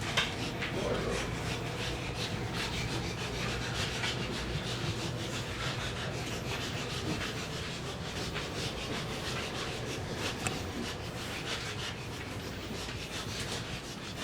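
Continuous rubbing and rustling close to the microphone, with a sharp knock just after the start, over a low steady hum.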